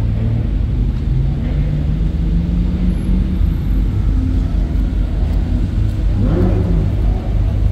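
Sports car engines running with a steady low rumble, one engine's pitch rising slowly a couple of seconds in.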